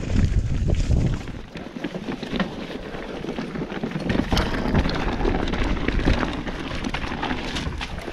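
Mountain bike rolling over loose stones: tyres crackling on gravel and the bike rattling, with wind buffeting the camera's microphone, heaviest in the first second.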